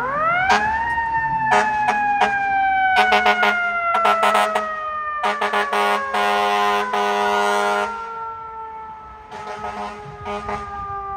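Fire apparatus mechanical siren winding up sharply in the first second, then coasting slowly down in pitch, with a fresh wind-up at the very end. Over it come repeated short air horn blasts and one longer air horn blast about six seconds in.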